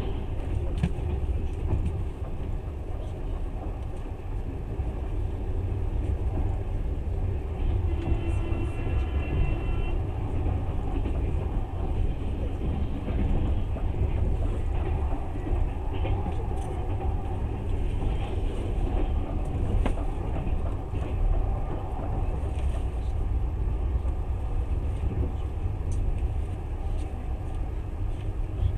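Passenger train running on the rails, a steady low rumble heard from inside the carriage, with a freight train passing alongside at the start. About eight seconds in a brief high-pitched tone sounds for roughly two seconds.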